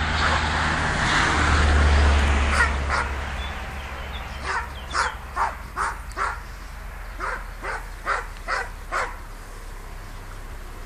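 A dog barking in quick runs of short, sharp barks, two or three a second, from about four to nine seconds in. Before the barks, a low rumbling noise.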